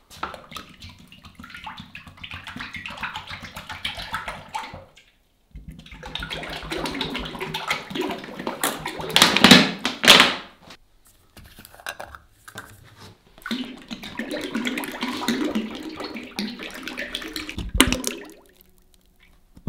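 Vegetable oil poured in a thick stream from large plastic jugs into an empty cast-iron kazan, in three long pours with short pauses between them. The loudest moment, about halfway, comes as a plastic jug is squeezed empty over the pot.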